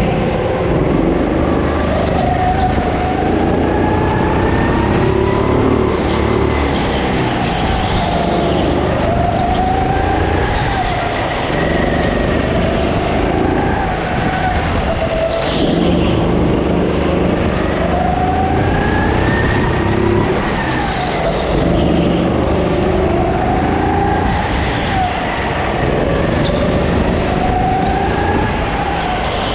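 Go-kart engine heard from onboard during a lap. Its pitch climbs and drops again every two to three seconds as the kart speeds up on the short straights and slows for the corners.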